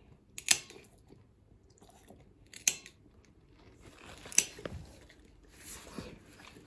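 Nail clipper cutting a large dog's toenails: three sharp clips about two seconds apart, then a softer rustle near the end.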